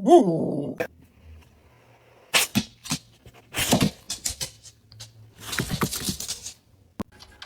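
A dog vocalizing in short bursts: a wavering cry in the first second, then three brief grumbling outbursts a second or so apart.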